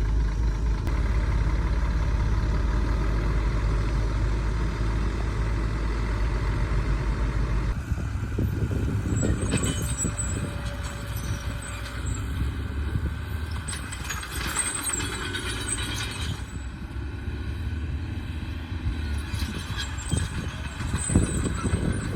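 Heavy diesel engine of construction machinery running steadily. About eight seconds in it drops back, and scattered metallic clanks and bursts of hiss follow.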